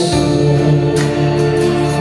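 Music: a song with a singing voice over instrumental accompaniment, holding steady notes.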